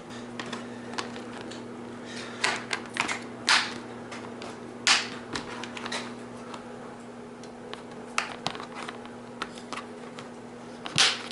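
Irregular clicks and short rustles of hands fitting and adjusting a plastic bike fender and its straps on the frame, over a steady low hum.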